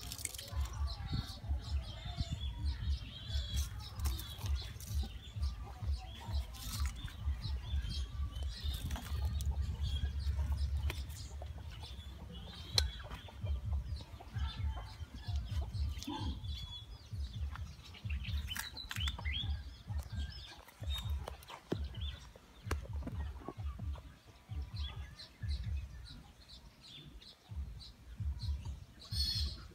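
Birds chirping and calling over a low, fluttering rumble that buffets the microphone throughout.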